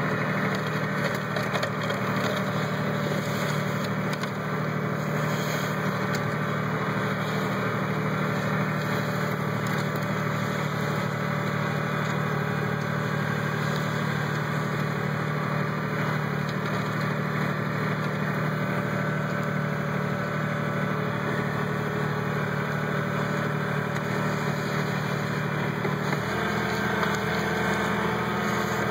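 Kubota B1700 compact tractor's three-cylinder diesel engine running steadily under load as its front blade pushes snow; its note changes near the end.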